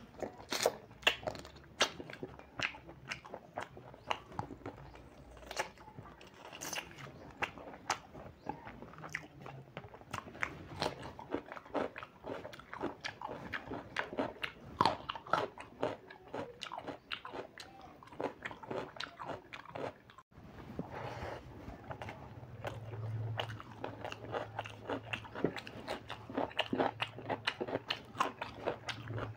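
Close-miked eating sounds: wet chewing, lip smacks and crunching as a man eats rice and chicken curry by hand, with a quick, irregular run of mouth clicks. After a brief break about two-thirds through, a steady low hum joins the chewing.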